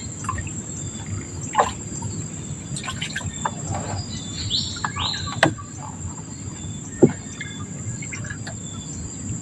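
Steady, high-pitched drone of insects, with a few short bird chirps about halfway through and a couple of sharp knocks later on, over a low rumble.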